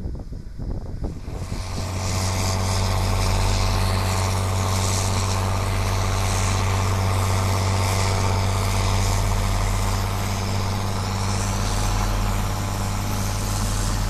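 Wind on the microphone for about the first second, then a tractor's diesel engine running at a steady speed with a low, even hum as it pulls a seed drill across stubble.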